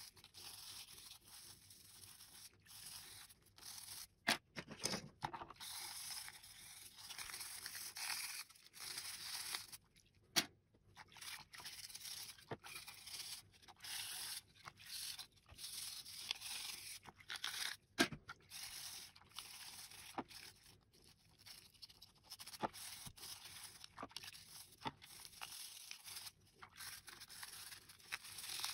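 Plastic parts of a Logitech M185 mouse being scrubbed clean, a faint rough rubbing in short, uneven strokes. A few sharp clicks and knocks of the parts are heard, the loudest about 18 seconds in.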